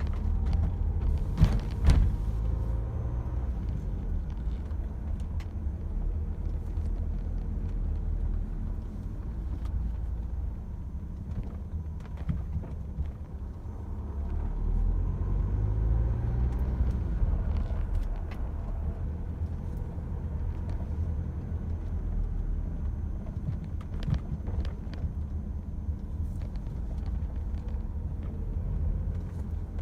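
Renault Espace IV engine running cold, heard from inside the cabin as a steady low rumble that rises in pitch twice as the revs pick up, with a couple of sharp clicks near the start. This is the cold-engine noise in the cabin that the owner is recording to compare with another Espace.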